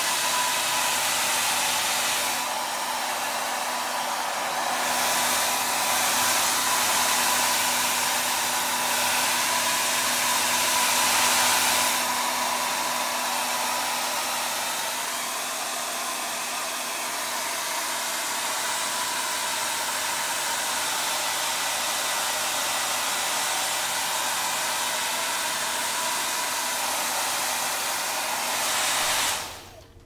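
Handheld hair dryer blowing steadily, a rush of air with a faint steady whine, its loudness shifting a little as it is aimed around; it is switched off about a second before the end.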